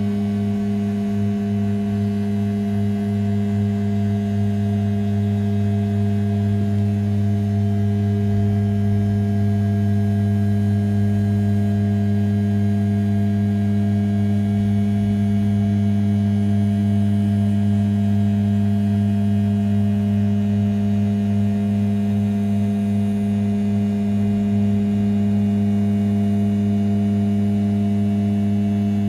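500 W brushless spindle of a converted RZ420 desktop CNC mill turning at 6000 rpm with an end mill roughing the outer profile of an A7075 aluminium block: a loud, steady, even hum that does not change.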